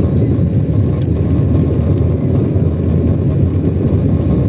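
Jet airliner heard from inside the cabin during its takeoff roll: engines at takeoff power and the wheels on the runway make a loud, steady, deep rumble.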